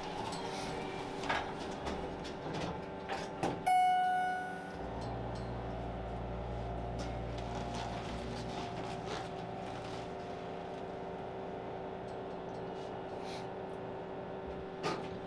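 Inside a hotel elevator cab, a single chime rings out clearly about four seconds in after a few light clicks. A low rumble follows for a few seconds as the doors slide shut and the car moves, over a steady hum from the cab.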